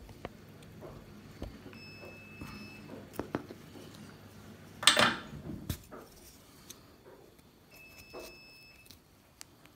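Small quadcopter parts and tools handled on a workbench: scattered light clicks and clinks, with one short, louder noisy burst about five seconds in. A faint high steady tone sounds for about a second, twice.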